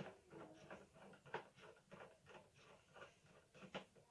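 Faint, quick clicks and scrapes of a hand screwdriver turning a screw into the back panel of a flat-screen LED TV, about three a second.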